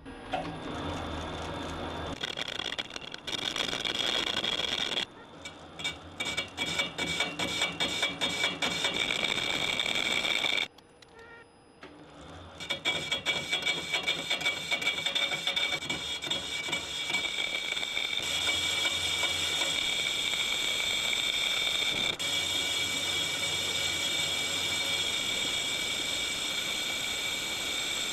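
Metal lathe turning the outside surface of a machined part: steady machine running with a high whine and the rattle of the cutting tool on the metal. It stops briefly about five seconds in and pauses for about two seconds near the middle before cutting resumes.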